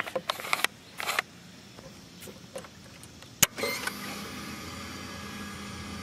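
A few short rattles, then a sharp click as the ignition of a 2005 Suzuki SV650S is switched on about three and a half seconds in. Its electric fuel pump then hums steadily for about three seconds, priming the fuel injection, and cuts off.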